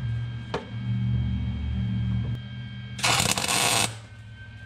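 Lincoln Easy-MIG 140 MIG welder striking an arc about three seconds in: a loud burst of arc crackle lasting just under a second, laying a single tack weld on thin sheet metal. A steady low hum comes before it.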